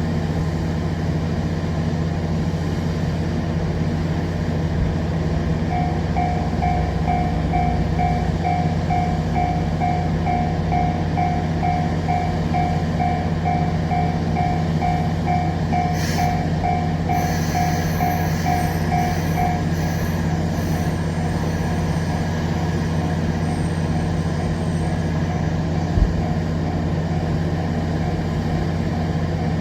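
A Japanese railway level-crossing warning bell rings in a rapid, even ding-ding of about two strokes a second, starting some seconds in and stopping about two-thirds of the way through. A steady low hum of a train runs under it. A sharp click comes shortly before the bell stops.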